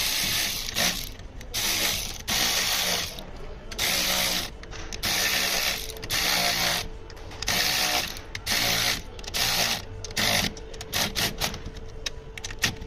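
Cordless electric ratchet wrench running in repeated short bursts, with a few quick blips near the end. It is driving the nuts of the anti-roll bar bushing brackets back on after new bushings were fitted.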